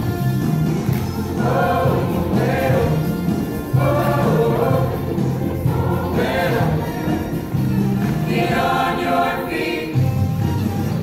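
A choir singing in sustained phrases over a steady low instrumental accompaniment.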